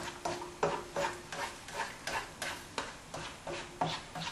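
Spatula scraping and stirring scrambled egg whites around a frying pan on a gas flame, in short strokes about three a second.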